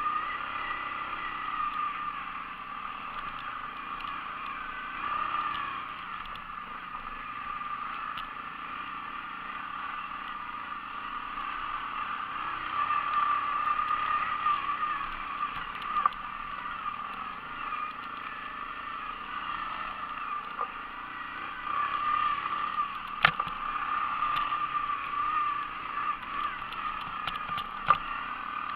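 ATV engine running while riding, its pitch wavering slightly as the throttle changes, with a few sharp knocks, two of them near the end.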